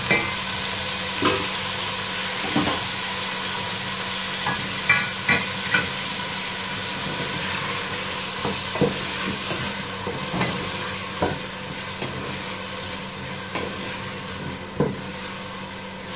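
Taro root (arvi) sticks sizzling as they fry in hot olive oil in an aluminium pot, with a steady hiss. A wooden spatula stirring them knocks against the pot now and then, about a dozen irregular knocks.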